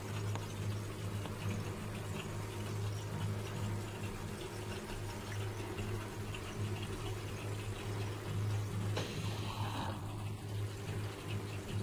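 Aquarium filter running: a steady low hum with the sound of moving water over it.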